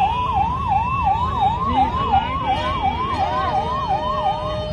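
Ambulance siren sweeping rapidly up and down, about three cycles a second, over a low rumble. The siren stops near the end.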